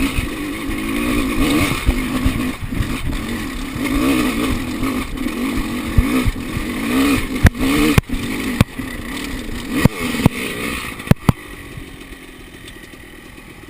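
Enduro dirt bike engine revving up and down in short bursts over rough ground, with a series of sharp knocks and clatters from about seven seconds in. The engine sound fades near the end.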